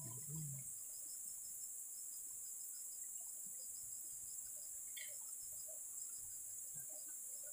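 Steady high-pitched chorus of forest insects, crickets or cicadas, with a quicker repeating chirp running beneath it. A brief low thump sounds just after the start.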